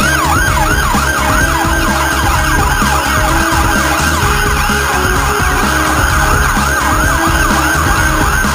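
Fire engine siren sounding a fast yelp, its pitch sweeping down several times a second over a steady low rumble.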